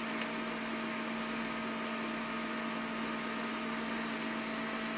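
Steady electrical hum with hiss, with one faint click about two seconds in.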